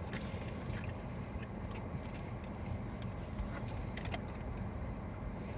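Steady low hum of a car's idling engine and air conditioning inside the cabin, with a couple of short sharp clicks about three and four seconds in.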